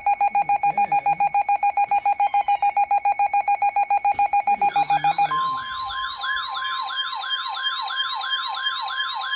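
Emergency weather alert tones: a rapid electronic beeping, about nine beeps a second, for roughly five seconds. It then switches to a warbling siren-like alarm that sweeps up and down about twice a second. Under the warble runs the steady tone of a NOAA Weather Radio warning alarm, signalling an incoming severe thunderstorm warning.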